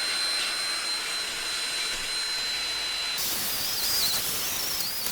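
Power drill with an abrasive scuffing attachment running with a steady high whine. About three seconds in the abrasive bears on the steel of the Weber kettle: the hiss grows brighter and the whine wavers as the load on the drill changes.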